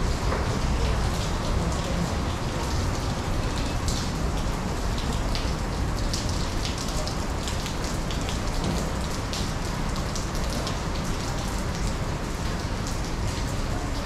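Steady rain falling, with many sharp drops splashing close by, over a steady low rumble.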